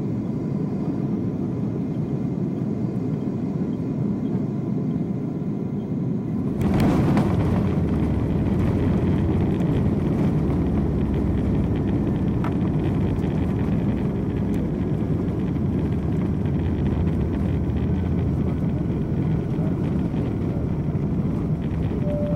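Inside the cabin of a Boeing 747-8 landing: a steady rumble of engines and airflow, then a sudden jolt about six and a half seconds in as the main wheels touch down, after which the rumble is louder and deeper through the rollout on the runway.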